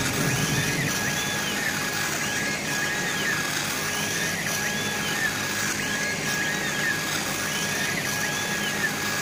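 CO2 laser engraving machine at work: its motion motors whine in repeated rising-and-falling sweeps, roughly once a second, as the laser head sweeps across the wood while engraving. Underneath are a steady hiss and a steady high tone.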